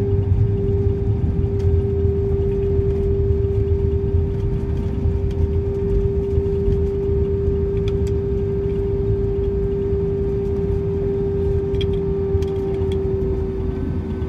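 Airbus A320 cabin noise on the ground just after landing: a steady low rumble with a constant mid-pitched hum.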